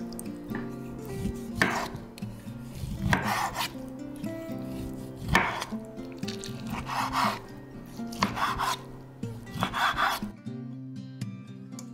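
Chef's knife slicing through a boiled whole orange on a wooden cutting board: about six slow cuts, roughly one every second and a half, stopping about ten seconds in. Soft acoustic guitar music plays underneath.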